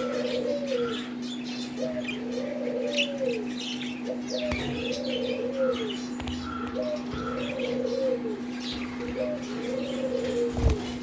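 A dove cooing over and over, a short rising note then a longer arched coo, about every two seconds, while small cage birds chirp in quick, high notes. A steady low hum runs underneath.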